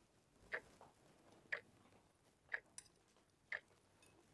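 A clock ticking, one sharp tick about every second, four ticks in all, with a fainter extra click between the third and fourth.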